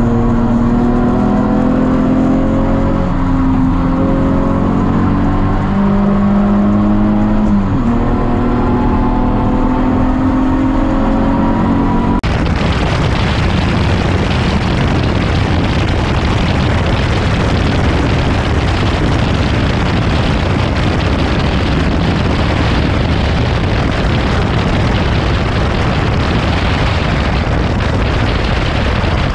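BMW E46 race car's engine pulling hard on track, heard inside the cabin, its pitch climbing, dropping about eight seconds in and climbing again. About twelve seconds in the sound cuts to a loud, even rush of wind over an outside microphone, the engine beneath it.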